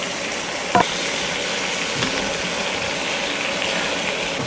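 Chicken pieces sizzling steadily in a frying pan with plenty of oil over a portable gas burner. A short sharp knock comes about a second in.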